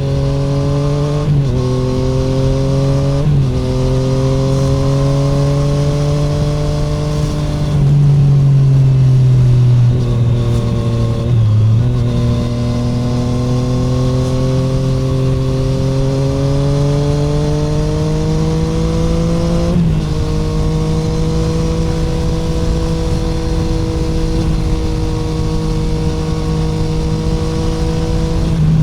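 2017 Triumph Street Triple 765R's inline three-cylinder engine running through an SC Project SC1-R titanium exhaust with no dB killer, heard onboard while riding. The revs climb and drop back with upshifts twice in the first few seconds, dip briefly about 11 seconds in, then rise in one long pull to an upshift about 20 seconds in, after which the bike holds a steady engine speed.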